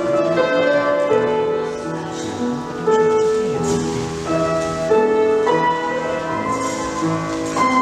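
Piano music: a steady run of held notes and chords, changing about every half second.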